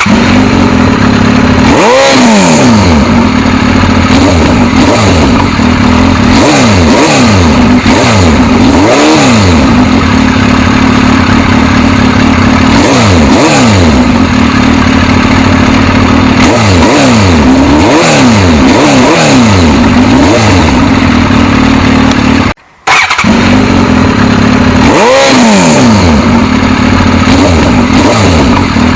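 Suzuki GSX-S1000's inline-four engine running loud, with repeated throttle blips: the revs climb and drop back every few seconds between spells of steadier running. The sound cuts out for a split second about three-quarters of the way through.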